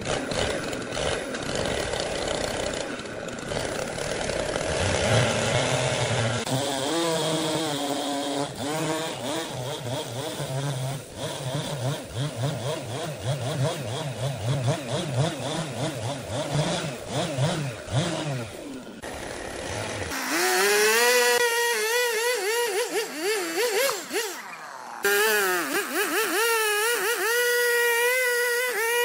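Two-stroke Husqvarna chainsaw at high revs, cutting through a thick hardwood slab. Its engine pitch wavers up and down as the chain bites. The sound changes abruptly about twenty seconds in and again a few seconds later, where one cut gives way to another.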